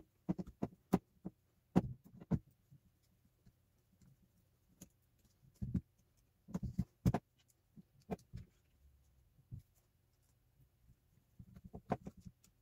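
Irregular small clicks and knocks, some in quick clusters, from a screwdriver working the screws in the front housing of a Parkside Performance PABSP 20-Li B2 cordless drill while hands shift the plastic drill body.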